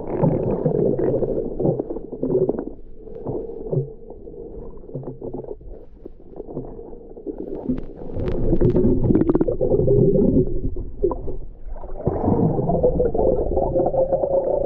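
Muffled underwater rumbling and sloshing of water against a submerged action camera as a snorkeler swims with a speargun. It is quieter a few seconds in, then louder from about eight seconds in to the end.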